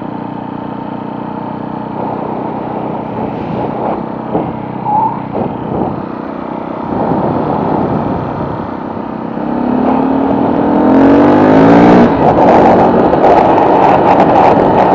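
Small motorcycle's engine running while riding. About ten seconds in it revs up with a rising pitch and gets much louder, and loud wind noise on the microphone comes in with the extra speed.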